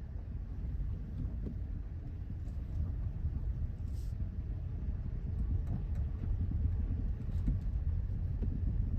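Hyundai Elantra (CN7) driving over rough road: a steady low rumble from the tyres and suspension, growing a little louder, with a few faint clicks.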